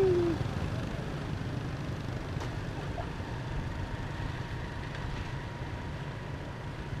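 Steady low rumbling background noise with a faint, thin steady tone above it; a held voice trails off right at the start.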